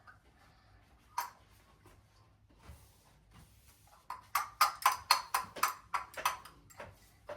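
A single sharp knock, then a quick run of about a dozen sharp taps, about four a second, lasting some three seconds: hard objects being tapped or knocked together.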